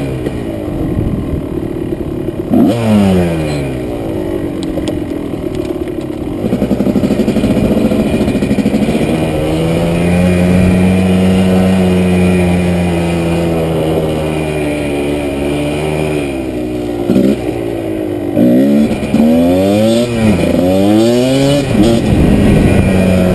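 Kawasaki KDX220 two-stroke single-cylinder dirt bike engine under way, its revs rising and falling as it runs through the gears. It holds a steadier pitch through the middle, then climbs in pitch several times in quick succession near the end as it shifts up.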